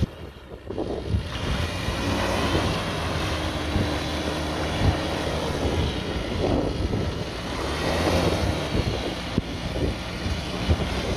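Engine of a homemade rotorcraft running steadily as the machine taxis along a road, louder from about a second in, with wind buffeting the microphone.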